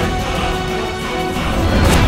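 Dramatic theme music with held tones over a heavy bass, and a swell just before the end.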